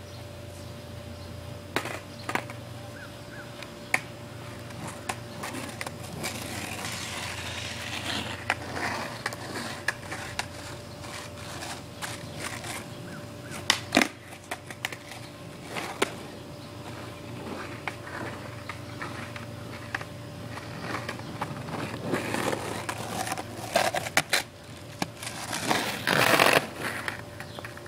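Skateboard wheels rolling on pavement, coming close and loudest near the end, with scattered sharp knocks heard before it.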